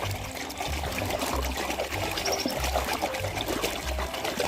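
Water pouring and trickling over a toy as it is washed.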